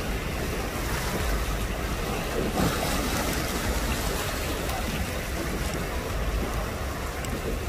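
Steady rush of wind on the microphone mixed with sea water washing and splashing, heard from a small boat out at sea.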